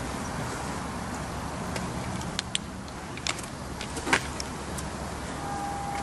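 A vehicle engine running with a steady low rumble. Several sharp clicks come about two and a half, three and a quarter and four seconds in, and a short steady tone sounds near the end.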